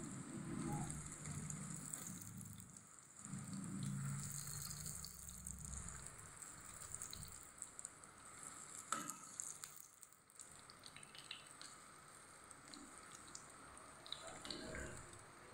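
Boiled eggs sizzling steadily as they fry in hot mustard oil in a kadhai, with a spatula scraping and tapping against the pan as they are turned; a sharp knock about nine seconds in.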